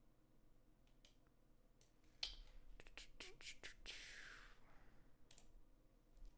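Faint computer mouse clicks, a few single ones and then a quick run of several about two seconds in, with a short soft hiss in the middle of them.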